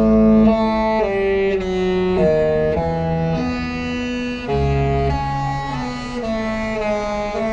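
Disney Fantasy's musical ship horn playing a tune: several horn tones sounding together, starting suddenly and stepping from note to note about every half second to a second.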